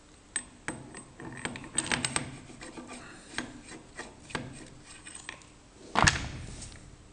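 Steel lathe tailstock parts handled by hand: a geared steel shaft and the cast tailstock body clicking and rubbing against each other in a string of light metallic clicks, with a louder knock about six seconds in.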